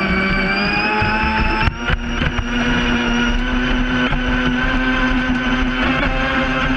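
Brushless electric motor of a 2Fast2Fun Bullet RC speedboat on a 3S LiPo pack with a 60A ESC, whining at high throttle. Its pitch climbs slightly at first, dips briefly about two seconds in, then holds steady over the hiss of spray off the hull.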